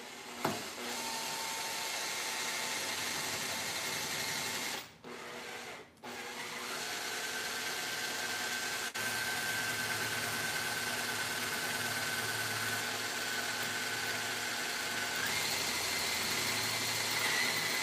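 Cordless drill with a spiky-ended wood drill bit boring into bamboo. The drill runs steadily, stops briefly about five seconds in, then runs again, its motor whine stepping up in pitch near the end.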